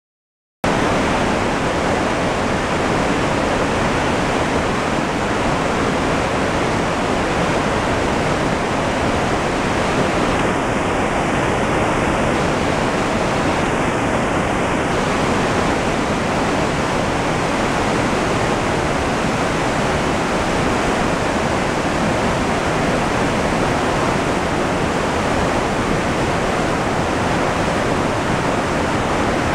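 River rapids: whitewater rushing over and around boulders, a loud, steady rush of water that starts abruptly about half a second in.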